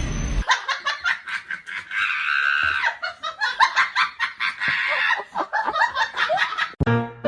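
Someone laughing hard in quick, rapid bursts. Music cuts off about half a second in, and piano music starts near the end.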